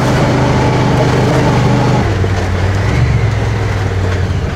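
Side-by-side UTV (Honda Pioneer) engine running as it drives along a dirt track, its note dropping a step about two seconds in.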